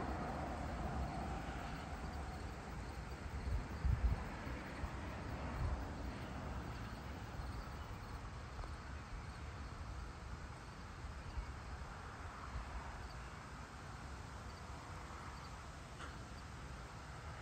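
Crickets chirping over a steady low rumble, with a few low thumps about four and six seconds in.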